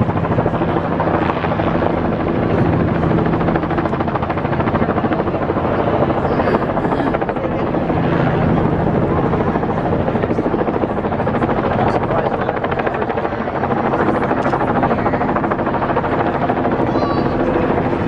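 A loud, steady mechanical drone with a fast flutter, holding even throughout.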